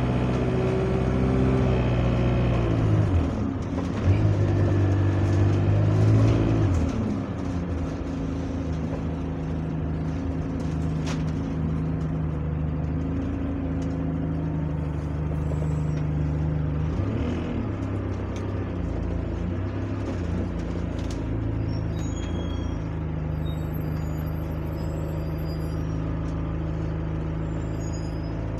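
Diesel engine of an Alexander Dennis Enviro200 single-deck bus heard from inside the saloon. It pulls away, its note rising and dropping at a gear change about three seconds in, rising again and dropping at a second change about seven seconds in. After that it runs on at a steadier, lower note.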